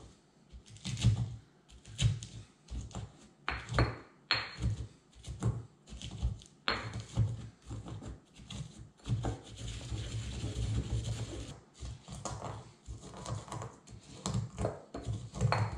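Stone pestle pounding and grinding annatto seeds in a stone mortar: repeated knocks and scrapes, with a few seconds of steadier grinding about ten seconds in. The hard seeds are slow to break down, tougher going than expected.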